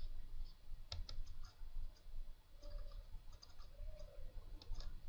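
Computer mouse clicking, a handful of sharp, scattered clicks over a low steady hum.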